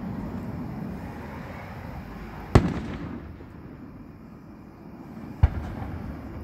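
Aerial fireworks bursting: two sharp bangs about three seconds apart, each trailed by a short echoing rumble.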